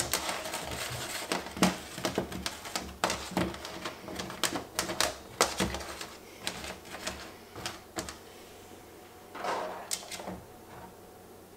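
Apple halves, onion wedges and carrot sticks being shifted and set down on an aluminium sheet pan, giving irregular light taps and clicks of produce and fingers against the metal. Near the end there is a short scrape.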